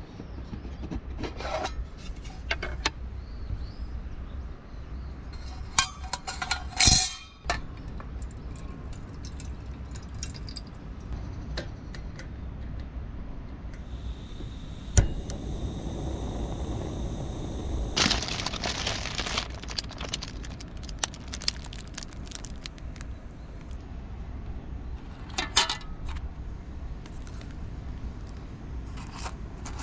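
Aluminium mess tin and a compact camping gas stove being handled and set up, with scattered metal clinks and clangs, the loudest clatter about seven seconds in. Halfway through comes a single sharp click as the stove's igniter is pressed, then a short burst of noise a few seconds later.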